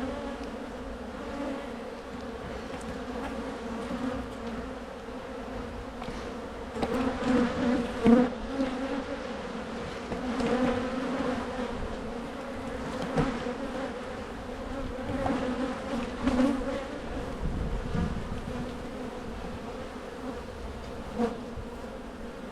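Honey bees buzzing around an open hive, a steady hum that swells several times, with a few short knocks.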